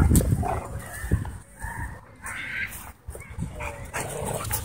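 Dogs making short barks and yips during a tug-of-war over a frisbee, with low thumps near the start.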